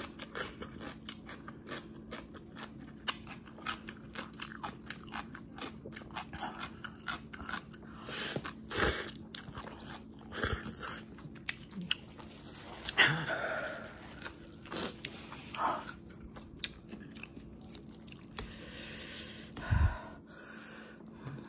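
Close-up mouth sounds of a person eating instant noodles: many small wet clicks of chewing, broken by several louder slurps. A low thump comes near the end.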